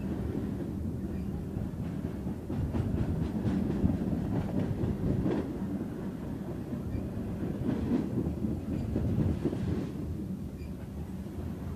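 Freight train's tank cars and covered hopper cars rolling past, a steady rumble of wheels on rail with scattered clicks as the wheels cross rail joints.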